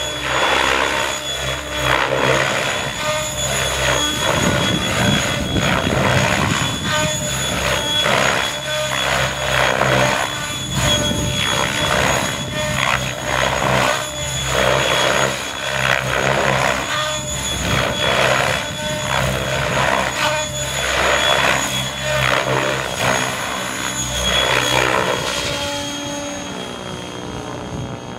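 Radio-controlled model helicopter flying aerobatics: a steady high whine under rotor noise that swells and dips about once a second as it flips and turns, fading near the end as it climbs high.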